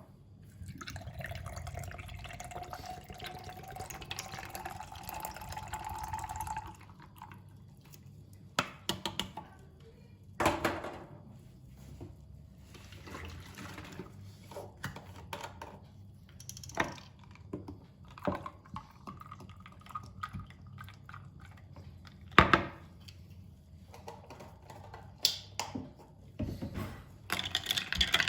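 Liquid pouring into a container for about six seconds, its pitch rising steadily as the container fills, followed by scattered light clicks and knocks.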